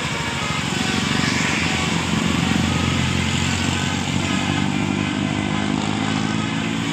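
A road vehicle's engine running loud and close with a rapid low throb, building up about a second in.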